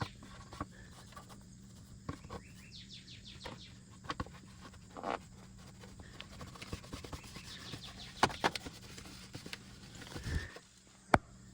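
Birds chirping in the background, with scattered light clicks and knocks from hands-on cleanup work; the sharpest knocks come near the end.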